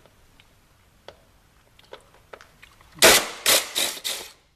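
Cordless power driver with a bit extension run in four short, loud bursts about three seconds in, backing out a Torx screw. A few faint clicks of the bit on the screw come before the bursts.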